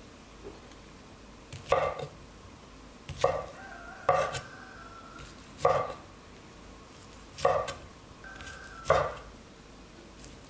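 Large kitchen knife cutting through Korean sundae (sausage) and knocking on a wooden cutting board: about six cuts a second or two apart, some with a quick double knock.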